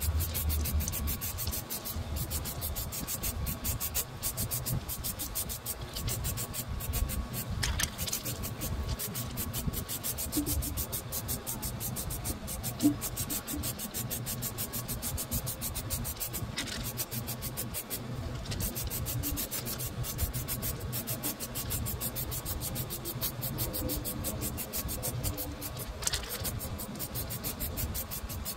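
Aerosol can of high-temperature silicone coating spraying onto a heat-wrapped exhaust downpipe, a continuous hiss with a short break about eighteen seconds in.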